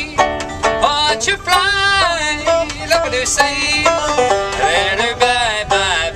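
Solo banjo picking a lively bluegrass-style train song, with a man's voice holding wavering notes over it in places.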